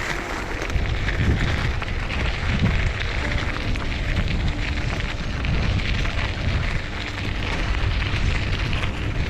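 Wind buffeting the microphone: a steady, loud rumbling rush with no clear pitch.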